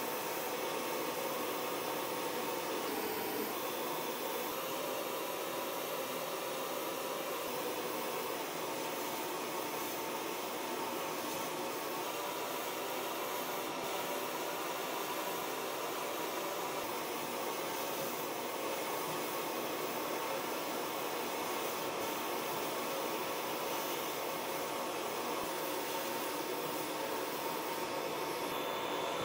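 Sandblast gun in a blast cabinet firing abrasive with compressed air: a steady, unbroken hiss as it strips rust and paint from the steel body of a vintage Tonka dump truck.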